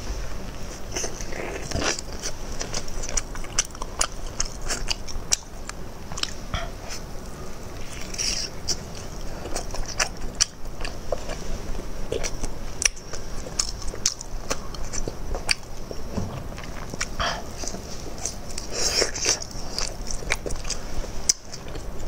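Close-miked biting and chewing of soft boiled offal dressed in sauce: a steady run of wet mouth clicks and smacks.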